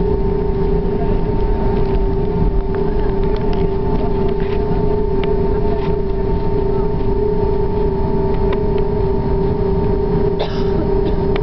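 Airbus A340-600 cabin noise heard from the rear cabin: the steady hum of its four Rolls-Royce Trent engines, with a constant whine over a low rumble.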